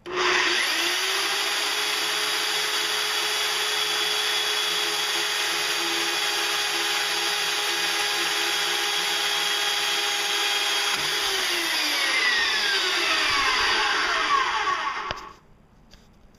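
Harbor Freight portable band saw winding up to speed and running steadily, its blade cutting through a length of 1/4 to 5/16 inch rebar. Near the end a falling whine shows the motor spinning down before it stops.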